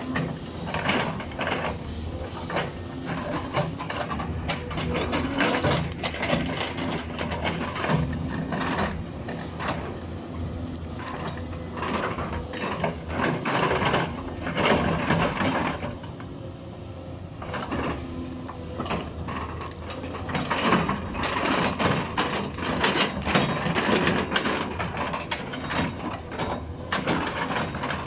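Caterpillar 320D L tracked excavator's diesel engine running steadily under load, under dense, irregular cracking, snapping and clanking as its bucket tears tree stumps and roots out of the ground. The cracking eases for a couple of seconds a little past halfway, then picks up again.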